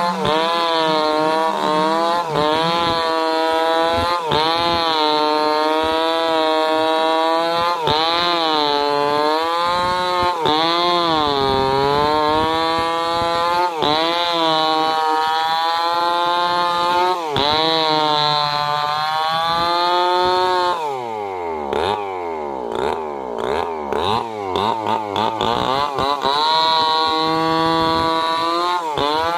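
Stihl two-stroke chainsaw running hard as it cuts through wood, its engine pitch dipping and recovering every second or two under load. About 21 seconds in it drops to a lower, uneven speed for several seconds, then revs back up near the end.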